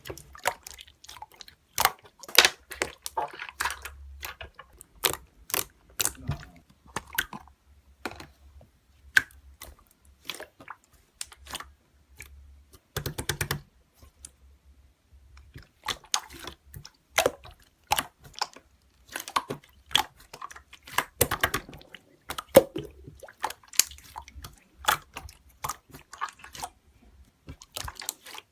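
Slime being squeezed and pressed by hand, making irregular sticky clicks, crackles and pops.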